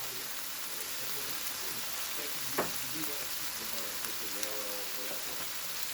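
Marinated meat frying in a pan with a steady sizzle. A single sharp knock comes about two and a half seconds in.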